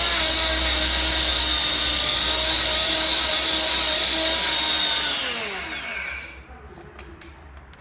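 Powder grinder running at full speed with a steady high whine, then switched off about five seconds in, its pitch falling as the motor spins down. A few light clicks follow near the end.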